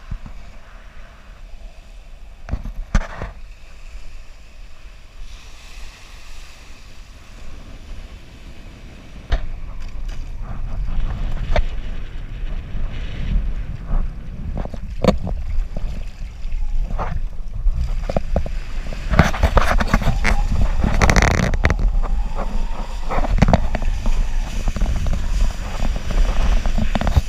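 Wind buffeting an action camera's microphone on a riding kiteboarder, with water slapping and spraying off the board. It gets much louder about nine seconds in, once he is under way, with scattered knocks and a burst of spray hiss around two-thirds of the way through.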